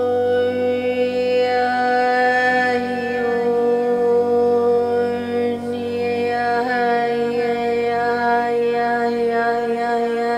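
Meditative drone music: one steady held tone with many overtones, its pitch bending slightly about two-thirds of the way through.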